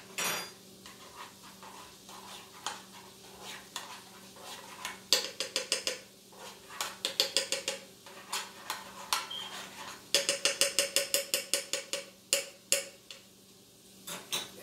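Metal fork clinking against a frying pan in quick runs of sharp ringing taps, about six a second, with a faint steady hum underneath.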